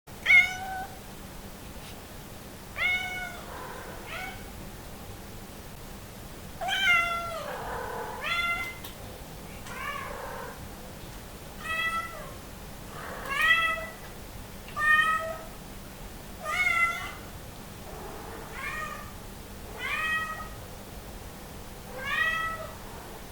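Somali cat meowing over and over, about a dozen separate calls a second or two apart: hungry demand meows, asking to be let into a room.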